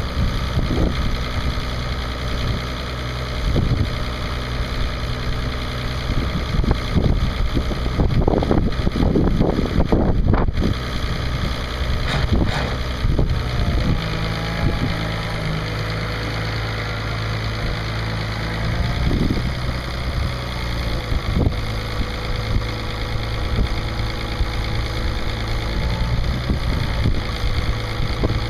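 International 3600 loader backhoe's D282 diesel engine running steadily, with a louder, rougher stretch of a couple of seconds about eight seconds in.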